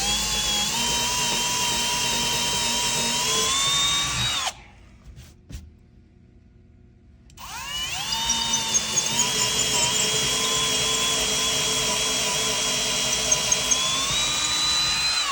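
Electric drill boring a hole into the wall for a TV mount bolt, in two runs with a pause of about three seconds between them. Each run spins up at the start, holds a steady whine, and rises slightly in pitch near its end.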